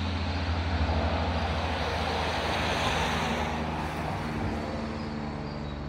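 Cessna 172 Skyhawk's single piston engine and propeller droning steadily overhead, slowly fading.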